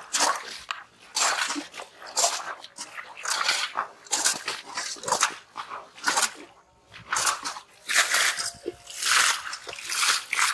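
Fish thrashing in shallow muddy water: a string of short, irregular wet splashes.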